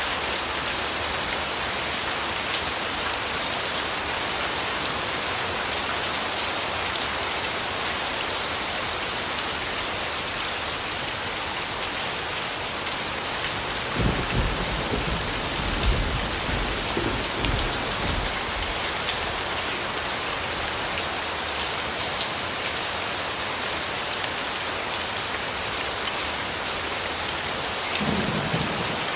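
Steady rain hissing on surfaces, with low thunder rumbling about halfway through and a short rumble again near the end.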